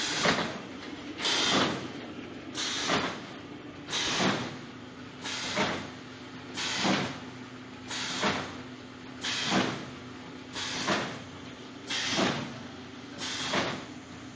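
Cinnamon roll make-up line machinery running, with a hissing stroke repeating evenly about every 1.4 seconds over a steady machine hum.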